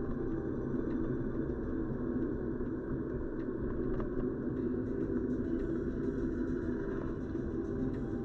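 Steady road noise of a car driving at cruising speed, heard from inside the cabin: an even low rumble of tyres and engine.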